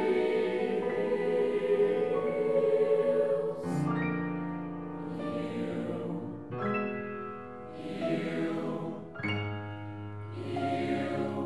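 Mixed choir singing held chords that change every second or two, with upright piano accompaniment, broken about three times by short hissing sounds.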